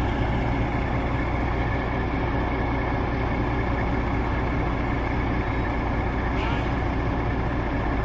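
Heavy diesel engine of a cabover semi-truck running steadily at low revs while it hauls a house-moving trailer, a deep even drone. There is a brief faint hiss about six and a half seconds in.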